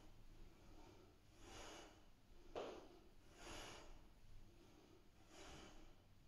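Faint rhythmic breathing of a person working through crunches, one short breath about every two seconds, with one sharper breath about two and a half seconds in.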